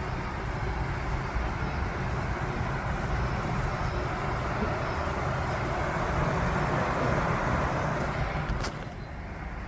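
Steady buzzing hum of a honeybee colony fanning at a hole in a tree trunk, ventilating the nest, over a low rumble. The hum swells in the middle and drops after a short click near the end.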